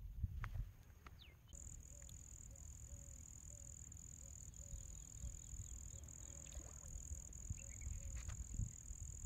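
Outdoor ambience: a steady high-pitched insect drone that starts about a second and a half in, faint short calls repeating about twice a second, and a low rumble underneath.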